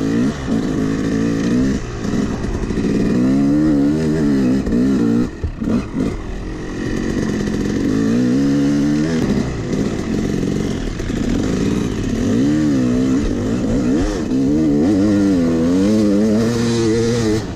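Yamaha YZ250X two-stroke dirt bike engine heard from the rider's seat, revving up and down again and again as it is ridden hard over rough ground. About five seconds in the throttle drops off briefly, with chassis clatter.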